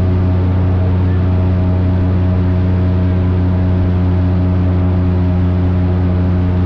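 Airboat engine and propeller running steadily: a loud, even drone that holds the same pitch throughout.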